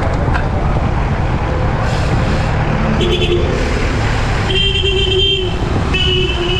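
Steady wind rumble on the microphone of a moving bicycle, with vehicle horns tooting: a short toot about three seconds in, a longer one near five seconds, and another starting about six seconds in and carrying on.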